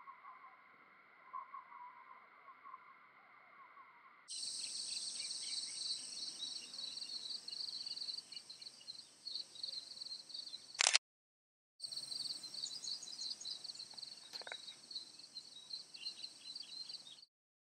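Natural outdoor ambience. Faint chirping at first, then about four seconds in a louder, steady, high-pitched buzzing chorus with fast pulsing cuts in abruptly. Just past the middle a brief sharp high sound, the loudest moment, is followed by a dropout of under a second before the chorus returns.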